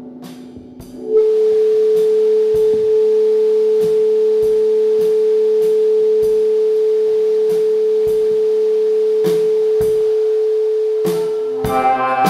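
Electronic music: a single pure, steady tone is held for about ten seconds over a quieter lower drone, with faint clicks about twice a second. Near the end a fuller chord of several tones comes in.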